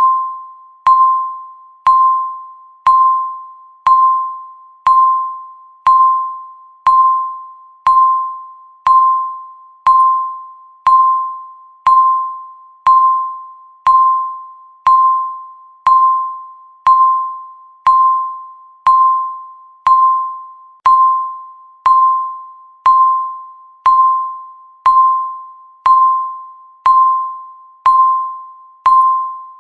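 Electronic countdown-timer beep sounding once every second, about thirty in a row. Each beep is a single mid-pitched chime-like tone that starts sharply and fades before the next.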